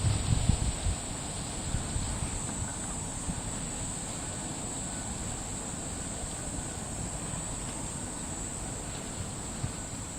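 Steady high-pitched insect buzzing throughout, with wind rumbling on the microphone during the first second.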